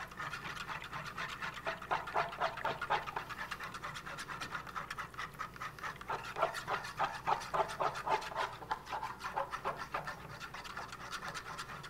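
Rapid, rhythmic hand whisking in a wooden salad bowl: a utensil ticking and scraping against the wood as olive oil is drizzled in to emulsify and thicken the Caesar dressing.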